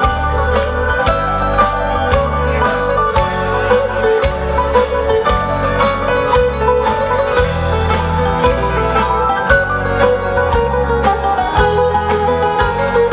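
Live band playing an instrumental passage between sung lines of a Greek pop song: a plucked-string lead over pulsing bass and a steady drum beat.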